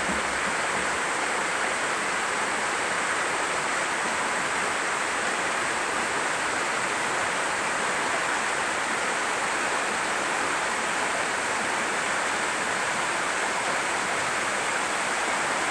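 A small waterfall pouring steadily: an even, unbroken rush of falling water.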